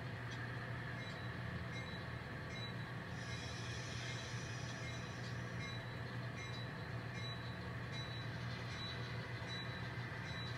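Model train locomotives running along the track, a steady low motor hum with faint, evenly spaced clicks from the wheels over the rails in the second half.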